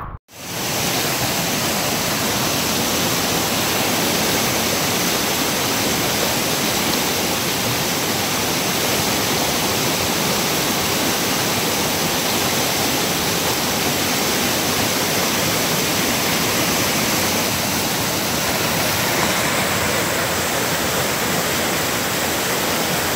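Steady rush of white water from a mountain creek and waterfall tumbling over rocks, with a slight change in its tone about nineteen seconds in.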